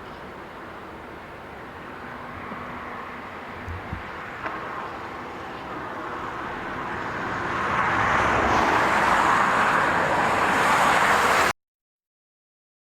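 A vehicle passing close by: a steady noise without a clear engine note, growing louder over the last few seconds, with two light knocks about four seconds in, then cut off abruptly.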